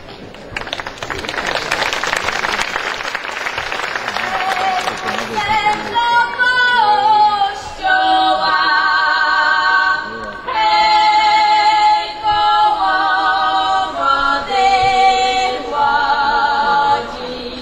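Applause for the first few seconds, then women's voices singing a Goral folk song a cappella in several parts, in phrases with short breaks between them.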